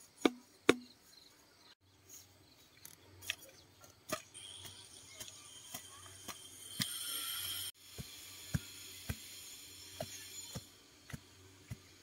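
Sharp wooden knocks and taps of bamboo garden stakes being handled and set in the soil, a dozen or so spaced roughly half a second to a second apart, the loudest two in the first second. A steady high hiss runs through the middle.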